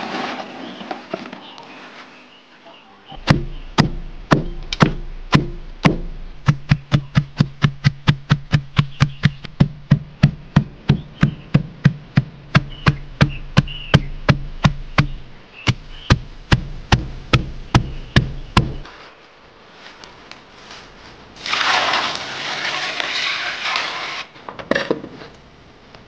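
Wooden mallet pounding a pile of fresh leaves on a stone slab to mash them: a long run of dull strikes, slow at first, then a steady rhythm of about three a second, which stops about three-quarters of the way through. Near the end comes a few seconds of steady rustling noise.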